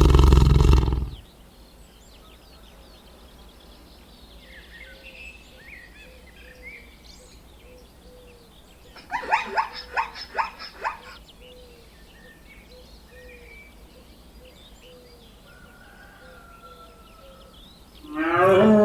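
Animal calls with no clear species. A loud low call fades out about a second in, a quick run of about eight short calls comes near the middle, and another loud call starts near the end, with faint bird chirps in between.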